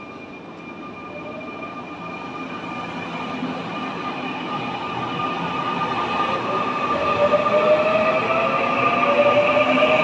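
Nankai 9000 series electric commuter train pulling away from a station platform and speeding up as its cars pass close by. Its running noise grows steadily louder, with a whine that slowly rises in pitch.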